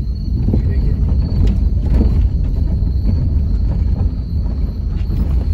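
Road noise inside a car driving slowly over a rough, broken causeway track: a heavy low rumble from the tyres and body, with scattered knocks from the suspension over the bumps.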